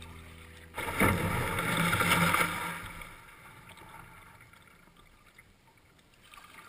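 Water rushing and splashing along the hull of a sea kayak under way: a sudden loud swish about a second in that fades over the next two seconds, then faint water lapping.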